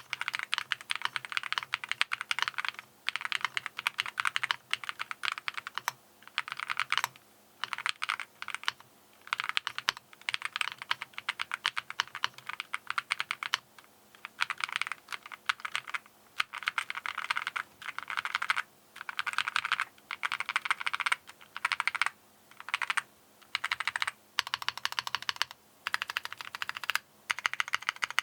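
Fast typing on a mechanical keyboard with Akko V3 Cream Yellow linear switches: quick keystrokes in bursts of a second or two, with short pauses between bursts.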